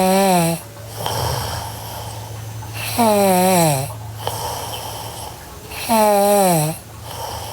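A sleeping girl snoring in a slow rhythm, about one breath every three seconds. Three times, a loud pitched sound lasting under a second slides down in pitch, with a quieter low drone between them.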